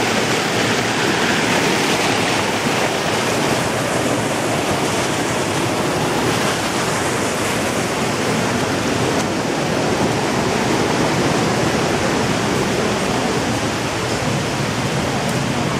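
Whitewater rapids rushing steadily over rocks, an even, unbroken hiss of falling and churning water.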